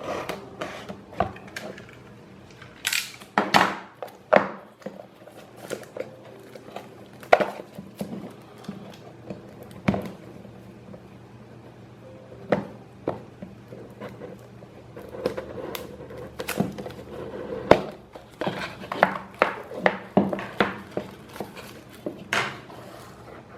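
A small product box and its contents being handled and opened by hand: irregular clicks, taps and rustles, some in quick clusters.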